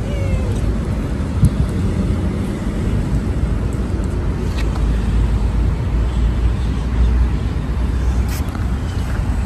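A short kitten mew, falling in pitch, right at the start, over a steady low rumble.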